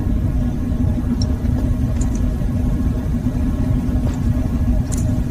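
Steady low rumble with a constant hum, with a few faint clicks.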